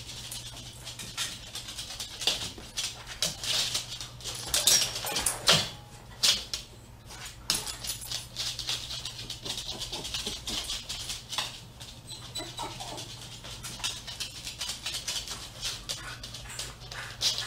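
Small dog left home alone, whining and whimpering in short high-pitched cries mixed with many quick clicks and taps.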